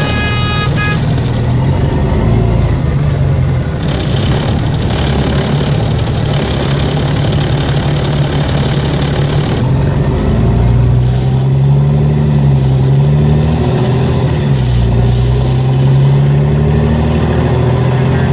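Volvo 7700A bus diesel engine running with a low steady tone that, about halfway through, starts wavering up and down in pitch again and again: the strange engine noise these buses are known to make, cause unknown.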